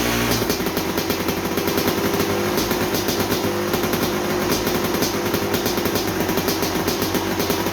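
1987 Kawasaki KX250's single-cylinder two-stroke engine running; about half a second in it drops from a steady higher speed to an uneven, lumpy idle.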